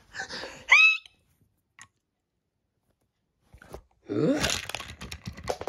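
Short cartoon voice sounds without words: a brief high squeak rising in pitch about half a second in, then, after about two seconds of silence, a rising vocal sound with breathy noise.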